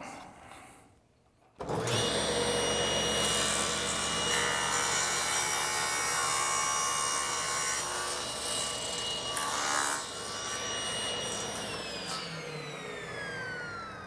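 Table saw switched on about a second and a half in, running steadily with its motor hum and blade whine, and crosscutting a solid cedar board on a crosscut sled in the middle. Near the end it is switched off and winds down, its whine falling in pitch.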